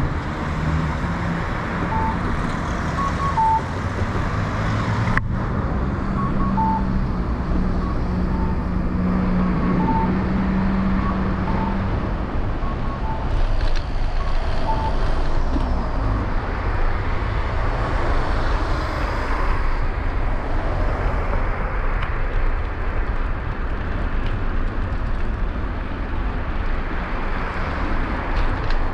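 Road traffic heard while cycling along a city street: a steady rumble and hiss. A motor vehicle's engine hum lasts for about the first twelve seconds, and a few faint short beeps come in the first half.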